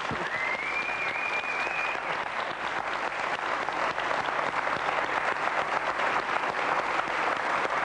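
Studio audience applauding steadily, a dense patter of many hands clapping, welcoming a guest just introduced. A thin high tone, rising slightly, sounds over the clapping for the first couple of seconds.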